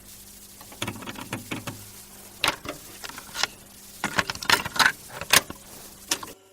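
Irregular clicks, taps and rattles, several of them sharp and loud, over a low steady hum, with no music.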